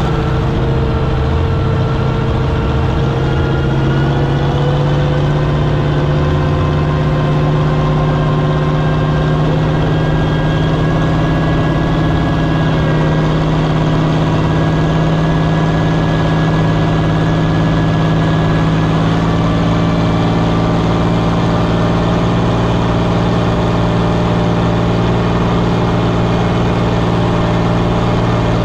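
Farm-stock pulling tractor's engine running steadily at an even, moderate speed, heard close up from the tractor. Its pitch drifts slightly lower over the first several seconds, then holds steady.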